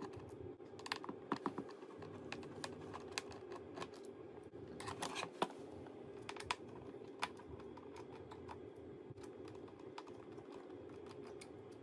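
Faint, scattered small clicks and ticks of a precision screwdriver turning and seating on the display hinge screws of a MacBook Pro, over a steady low hum. The clicks bunch up about a second in and again about five seconds in.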